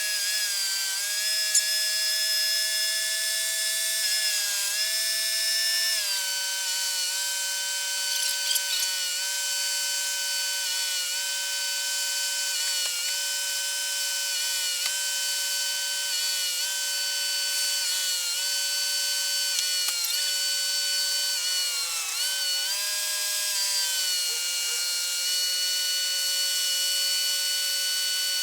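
Cadillac Northstar V8 running while it is treated with a head-gasket sealer, played back fast-forwarded so the engine note comes out as a steady high whine. Its pitch shifts and dips briefly a few times.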